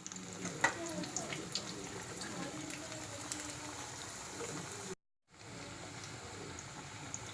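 Faint sizzling of frying in a pan, with a few sharp utensil clicks near the start and faint voices in the background. The sound cuts out completely for a moment about five seconds in.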